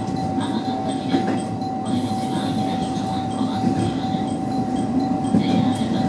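Train running, heard from inside the driver's cab: a steady rumble of wheels and rails, with a constant high tone held over it.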